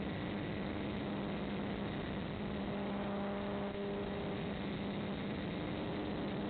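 Motor of an FPV model aircraft running steadily: a constant hum under an even hiss, with faint higher tones coming in for a second or two in the middle.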